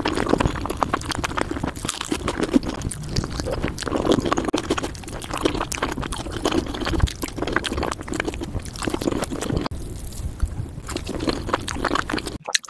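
Close-miked wet, sticky tearing and squishing of cooked chicken meat being pulled apart by hand, with crackling lettuce and chewing mixed in.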